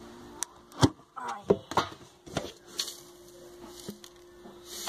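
Plastic food container being opened: a handful of sharp plastic clicks and knocks from the lid, the loudest about a second in, over a faint steady hum.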